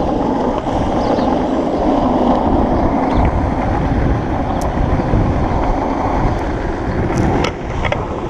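Longboard's large soft urethane wheels rolling over rough asphalt: a steady, loud road rumble, with a few light clicks and a brief drop in level near the end.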